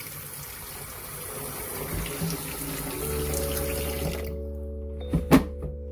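Cold water running from a kitchen faucet into a kettle sitting in a stainless steel sink. The rush of water stops about four seconds in, and a couple of sharp knocks follow about a second later.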